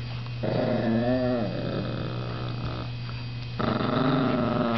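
Miniature pinscher growling while tugging over a dog jacket: two long growls that rise and fall in pitch, the second starting about three and a half seconds in, over a steady electrical hum.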